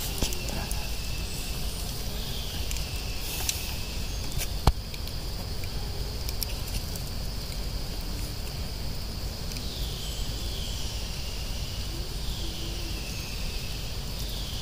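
Insects shrilling steadily, with a call that sweeps down in pitch and repeats every couple of seconds, over a low rumble. A single sharp click comes a little under five seconds in.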